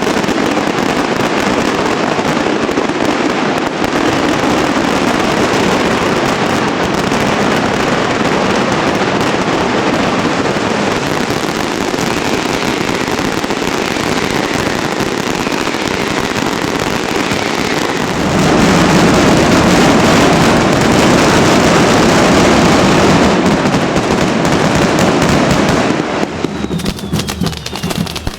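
Dense, continuous barrage of fireworks and firecrackers exploding in rapid succession. About two-thirds of the way in it grows louder and heavier, then eases off near the end.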